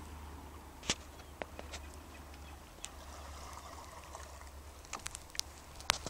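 Muffled handling noise of a phone sealed in a plastic waterproof pouch: a steady low rumble with scattered sharp clicks and crinkles.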